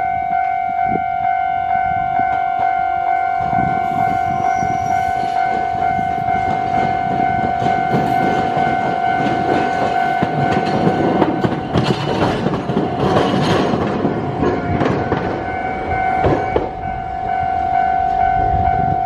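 Matsuyama city tram car rolling over a rail crossing point where its line crosses the suburban railway. The rolling noise builds, then the wheels clack and knock over the crossing rails, heaviest in the second half before fading. A steady high-pitched tone sounds throughout.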